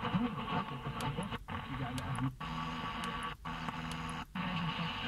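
Car radio tuning through the AM medium wave band, jumping from station to station with a brief mute at each step, about once a second. Between steps, weak distant stations come through with static and faint fragments of voices, all in the muffled, narrow sound of AM reception.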